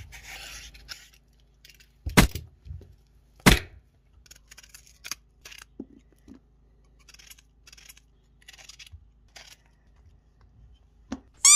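Cucumber being peeled with a vegetable peeler, then sliced by hand with a kitchen knife: a brief scraping, two sharp knocks, then a run of short faint cutting strokes as slices drop into a bowl. A short high squeak near the end.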